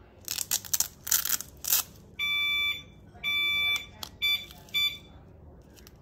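Velcro strap of a wheelchair seatbelt alarm ripped open in three quick tears, then the belt's alarm unit beeping: two longer high beeps about a second apart, followed by a few shorter ones.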